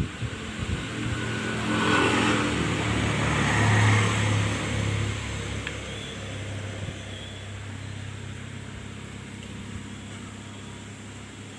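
A motor vehicle's engine passing by: a low engine hum that grows louder over the first few seconds, is loudest about four seconds in, then slowly fades away.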